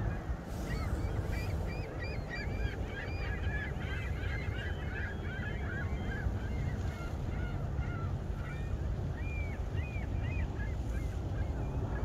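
A flock of gulls calling, many short overlapping calls at once, thinning out near the end.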